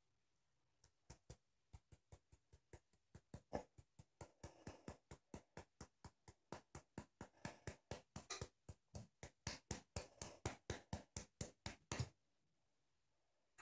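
Cinnamon being shaken from its spice container onto a spoon: a long run of quick, sharp taps that speeds up from about two or three a second to about four or five, then stops near the end.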